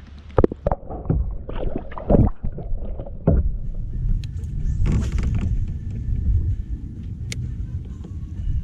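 Wind rumbling on the microphone aboard a fishing kayak, with several sharp knocks against the kayak in the first few seconds and a short rush of noise about five seconds in.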